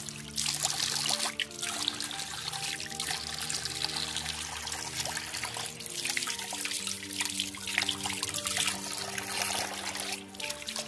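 Water running from a tap into a ceramic washbasin, with hands rinsed under the stream, over background music with held notes.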